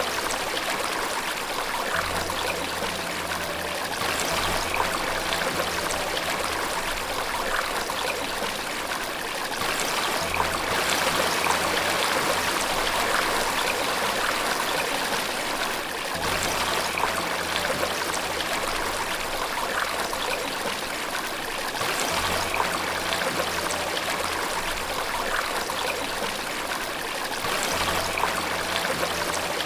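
Steady rushing and trickling of running water. Faint low sustained notes sit underneath and change every few seconds.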